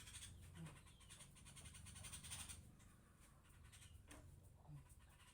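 Near silence with faint scratchy rubbing that rises and falls in a few slow swells.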